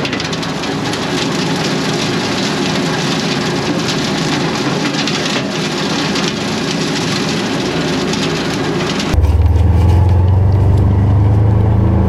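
Tractor-drawn rotary cutter (bush hog) running through brush: a dense, steady noise of engine and cutter. About nine seconds in it gives way abruptly to a deeper, steady low engine hum.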